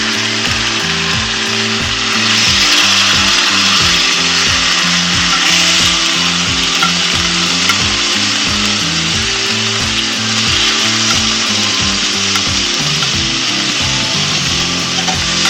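Food frying in a pan over a campfire, a steady loud sizzle, with background music that has a steady beat underneath.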